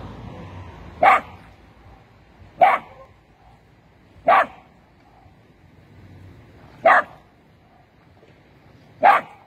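A dog barking: five short single barks, one every two seconds or so.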